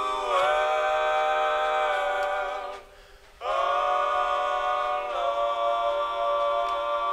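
Background music of long held chords, breaking off briefly about three seconds in before a second held chord begins.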